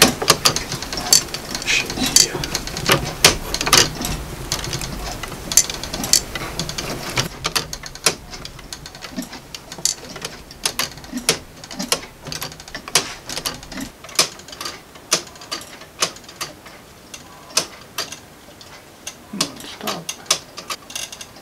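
3D-printed plastic weight-driven clock being wound with a hand crank: a dense run of ratchet clicks over a low rumble for about the first seven seconds. After that come sparser, fairly regular ticks from its Galileo escapement as the clock runs.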